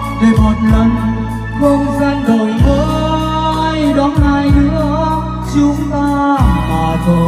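Loud backing music played through a large stage sound system: a steady beat with sustained bass notes and a melodic lead line.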